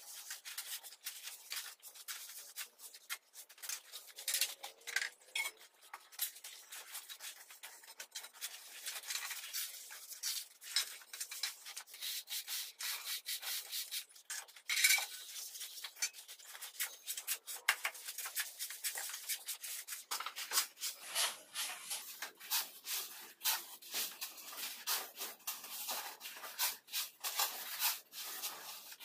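Trowel scraping and rubbing over a damp sand-and-cement mortar bed as it is spread and levelled, in quick, irregular gritty strokes.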